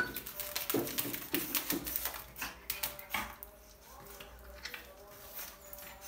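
A pug's claws and paws clicking, tapping and scratching on a tile floor and on a smartphone as it pounces on and paws at the phone. The clicks come thick and fast for about the first three seconds, then turn sparse and faint.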